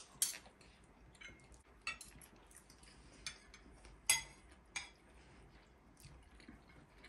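Cutlery and dishes clinking: a handful of separate light taps and clinks, the loudest about four seconds in with a short ring.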